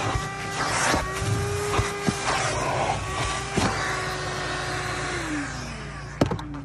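Shop vacuum running, its hose sucking at the interior of a rain-flooded car: a steady motor whine over a rush of air, with a few knocks of the nozzle. About five seconds in the motor is switched off and its whine falls in pitch and dies away, followed by a sharp clack.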